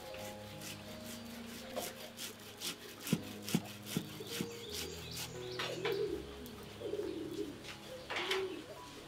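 Peeled cassava scraped on a wooden hand grater in quick repeated strokes, about three a second, with a few sharper knocks about three seconds in. Doves coo over soft background music.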